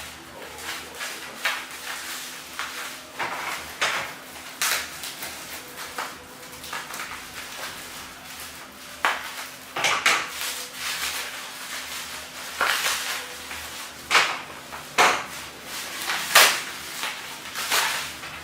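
Irregular clicks, knocks and clatter of hard objects being handled, plausibly the camera hand-grip stabilizer and its parts taken out and handled during unboxing, with the sharpest knocks about ten seconds in and twice near the end.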